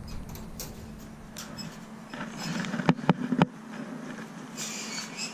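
Scattered clicks, rattles and rustling from handling a trap that holds two birds, with three sharp knocks close together about three seconds in.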